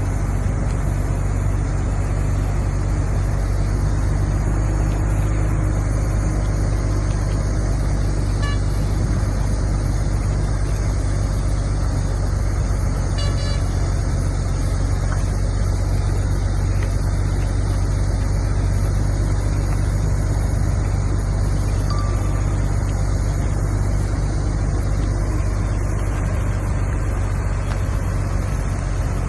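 Bulldozer's diesel engine running steadily under load, a constant low drone.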